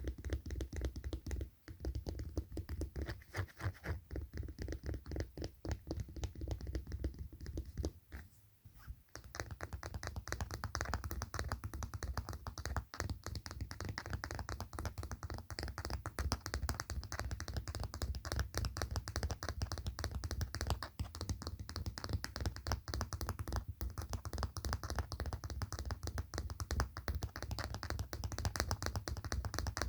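Rapid, continuous finger tapping on a hard handheld object, with a short pause about eight seconds in.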